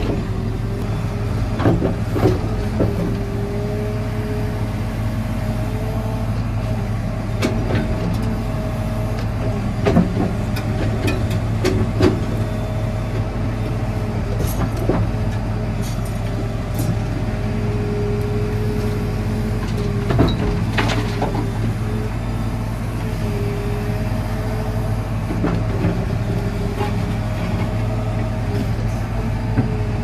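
A JCB 4CX backhoe loader's diesel engine running steadily, heard from inside the cab, with a wavering hydraulic whine that rises and fades as the backhoe arm works. Scattered clunks and knocks come from the bucket digging into soil and stone.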